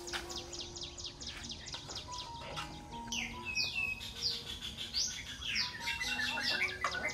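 Small birds chirping: a quick run of short falling chirps, then from about three seconds in longer downward-sweeping calls, with warbling near the end. Soft background music with held notes plays underneath.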